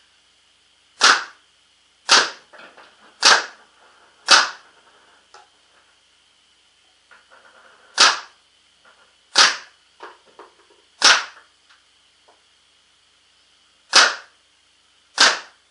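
Proto Matrix Rail 2011 paintball marker with a 360 QEV firing reballs on compressed air, one shot at a time: nine sharp pops, one to three seconds apart. Fainter clicks and knocks come between the shots.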